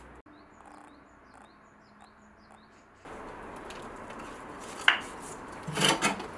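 Metal clicks and knocks from a hinged metal incense cone mold being handled and pressed. One sharp click comes about five seconds in, then a short cluster of knocks just before the end.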